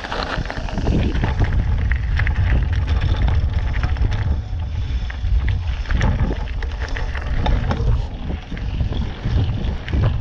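Mountain bike riding fast over loose gravel and dirt: knobby tyres crunching on stones and the bike rattling over the rough ground, under heavy wind buffeting on the camera microphone.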